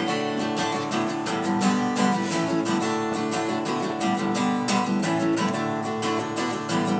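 Acoustic guitar strummed in a steady, even rhythm, an instrumental stretch with no singing.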